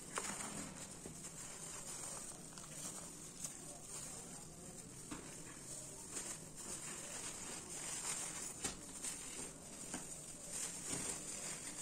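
Thin plastic gloves and a plastic bag crinkling and rustling as they are handled, with scattered small clicks and taps.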